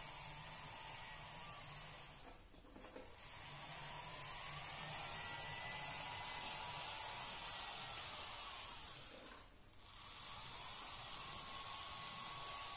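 Two H0-scale MTB 'Bardotka' diesel locomotive models running on track: a steady whirring hiss from their motors and drives, with a faint whine that shifts slightly in pitch, and no odd noises. The sound dies away briefly twice, about two and a half seconds in and again near ten seconds.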